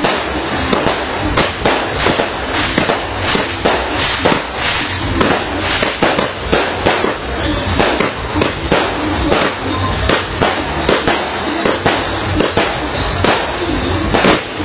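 Fireworks going off in a dense, irregular barrage: sharp bangs and crackles, several a second, without a break.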